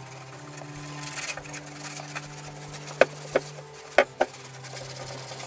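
Cloth rag rubbing beeswax into a painted cabinet door frame, a soft rubbing, with a few light knocks about three and four seconds in. A steady low hum runs underneath.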